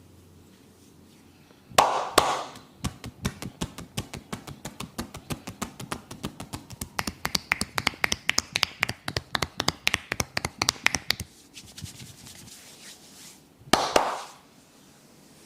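Hands beating out a fast percussive massage on a person's head and back: quick, even slaps several a second for about eight seconds. A louder double smack comes just before them and another near the end.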